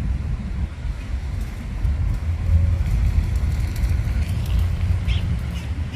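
Steady low outdoor rumble with a few faint, short high-pitched calls from green parrots near the end.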